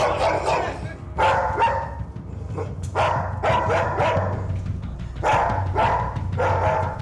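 Young white German Shepherd barking repeatedly in quick runs of two or three barks about half a second apart. These are aggressive guarding barks aimed at a visitor who has just come in.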